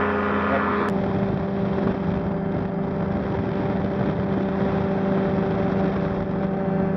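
Ultralight trike's engine and propeller running steadily at a constant pitch. There is a sharp click about a second in, after which some higher tones drop away.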